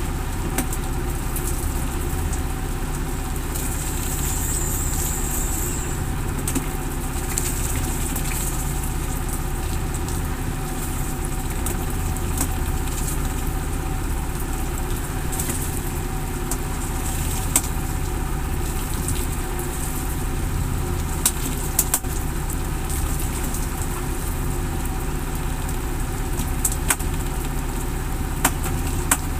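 A boat engine running steadily at a constant low speed, with a few sharp clicks over it.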